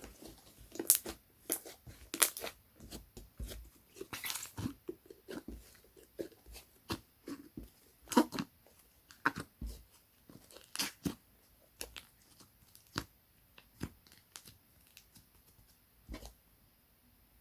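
Slime being squeezed, stretched and poked by hand, giving irregular sharp pops and clicks of uneven loudness.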